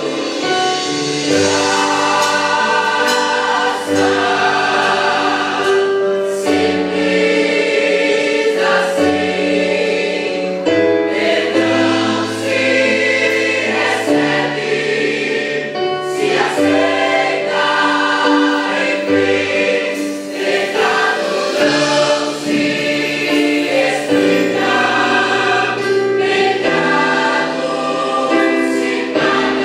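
Youth choir singing a gospel hymn in chorus over a musical accompaniment with sustained low bass notes.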